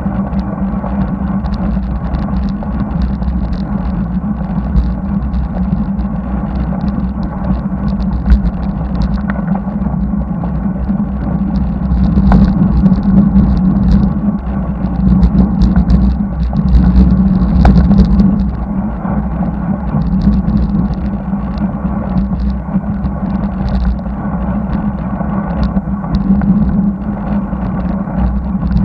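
Wind rumbling over the microphone of a bicycle-mounted action camera, with the hum of the bike's tyres on the asphalt, while riding along a highway. It grows louder for a few seconds in the middle.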